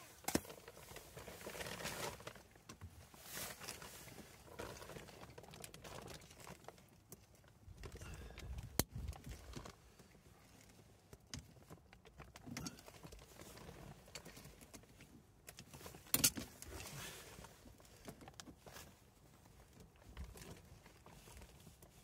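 Faint handling sounds: rustling and scattered sharp clicks as hands work pliers and hose clamps on the hot tub's plumbing around a new flow switch.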